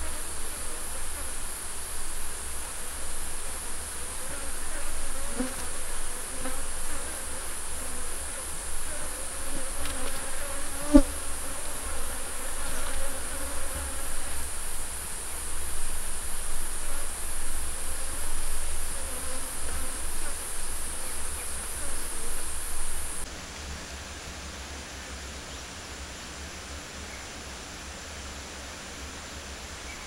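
Honeybees buzzing close by, the buzz wavering in pitch as they fly past, over a steady high-pitched insect drone. One sharp click near the middle; about two-thirds of the way through, the buzzing and the high drone stop suddenly, leaving fainter ambience.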